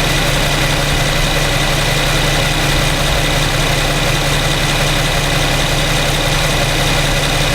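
2015 Infiniti Q70's 3.7-litre V6 idling steadily in drive, with an even low hum and no change in speed.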